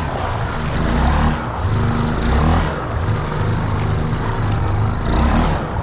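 Honda 300 ATV engine running and revving up and down as it pushes through deep floodwater, with a steady hiss of churned water around it.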